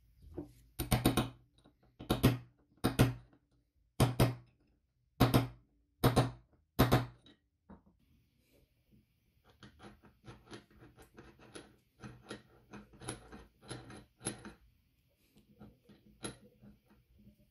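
Metal parts of a hand-cranked grinder's gear train being handled: about eight sharp clacks roughly a second apart, then quieter rapid clicking and rattling as the gears and shaft are worked by hand.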